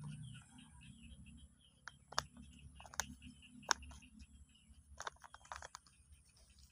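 Sharp little clicks and crackles of a plastic feed sack as a baby monkey pats and scrambles across it: a few single clicks, then a quick cluster near the end.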